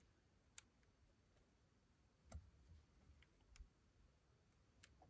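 Near silence, with four faint, short clicks spread across the few seconds.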